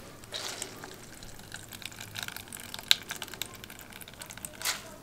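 Grated raw potato squeezed hard by hand: wet squelching and crackling of the shreds, with the pressed-out juice trickling and dripping into a plastic bowl. The crackles come irregularly, with a sharp click about three seconds in and a brief louder squelch near the end.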